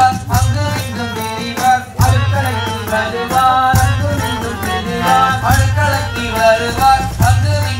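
Background music with a steady beat: bass pulses about once a second under a wavering melody and crisp percussion hits.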